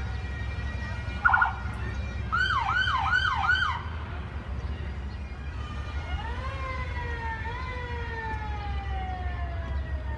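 Police patrol car sirens: a short warbling burst about a second in, then four quick rising-and-falling yelps, then a long wail that rises about six seconds in and slowly falls. A steady low rumble runs underneath.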